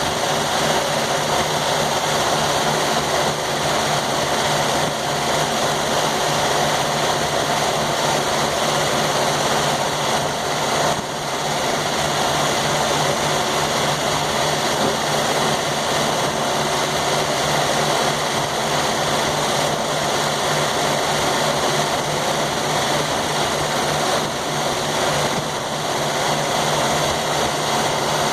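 A sawmill's engine running steadily at a constant speed, with a low hum that does not change.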